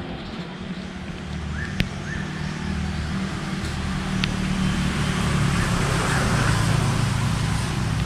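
A motor running with a steady hum that grows louder over the first several seconds, with two sharp clicks early on.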